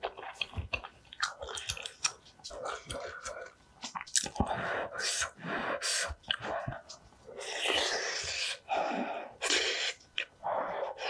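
Close-miked chewing and wet mouth sounds of a person eating spoonfuls of cooked rice, with irregular small clicks and smacks.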